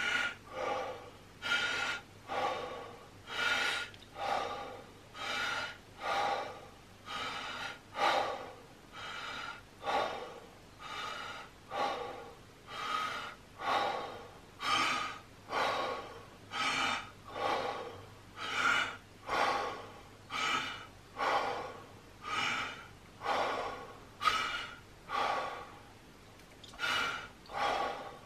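A man doing Wim Hof method breathing: deep, forceful breaths in and out through the mouth, in a steady rhythm of about one breath sound a second.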